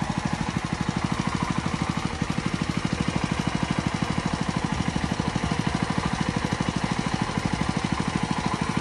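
Small single-cylinder petrol engine driving a portable water pump on a wheeled cart, running steadily with a rapid, even putter while it pumps water out of a pond.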